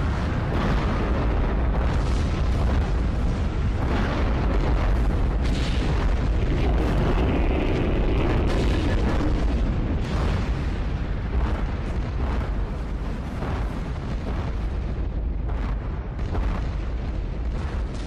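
Sound effect of giant titans marching: a loud, deep rumbling packed with booms and crashes, easing somewhat after about ten seconds.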